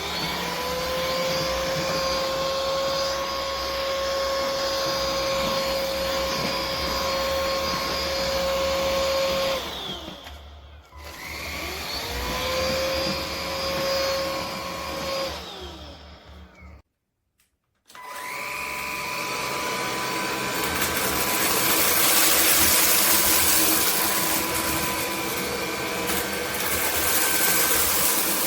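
Cordless stick vacuum's motor spinning up with a rising whine that settles to a steady pitch. It is switched off and winds down about nine seconds in, then runs again briefly and winds down. After a short silent gap it runs a third time with a higher whine and a louder rush of air.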